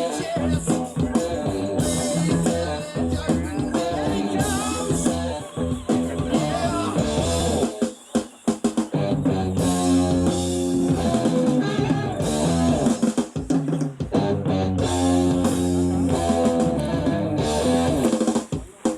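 Heavy rock music, electric guitar with bass and drums, without vocals, briefly dropping away about eight seconds in.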